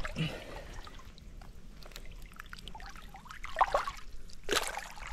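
Shallow creek water trickling and splashing around a Murray cod and a gloved hand held at the surface as the fish is released, with a few louder sloshes near the end.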